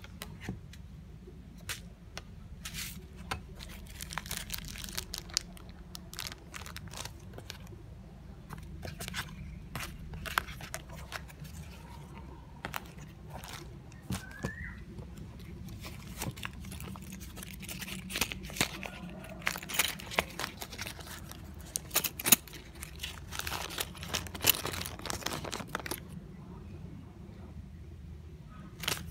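Handling noise from unpacking: paper and plastic packaging crinkling and rustling, with irregular clicks and taps that are busiest in the second half.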